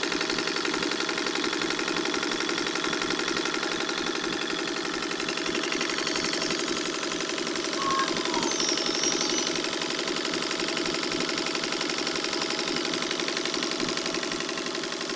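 A 1947 Singer sewing machine running steadily on its electric motor under the foot pedal, its works clattering in a fast, even rhythm. The mechanism is dirty and gummed up with chainsaw oil.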